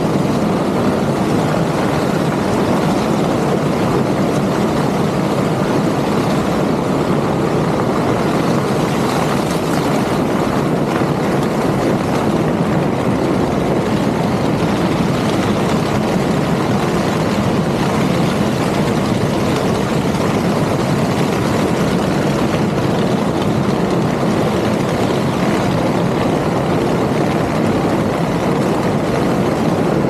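Claas Lexion 8800 combine harvester harvesting corn, heard close to its corn header: a steady, dense noise of stalks being drawn in and snapped off over the machine's running drives, unchanging throughout.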